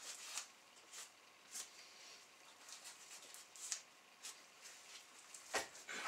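Faint scattered rustles and small tearing sounds of a fox pelt being pulled and peeled off the hanging carcass by hand, with one sharper noise near the end.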